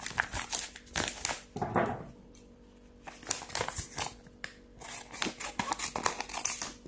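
Paper postal envelopes rustling and tapping as they are picked up and shuffled by hand, in short spells with a quieter pause of about a second near the middle.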